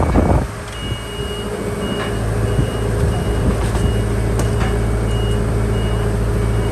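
A heavy diesel earthmoving machine runs steadily while its reverse alarm beeps about twice a second, starting about a second in. A short loud clatter comes at the very start.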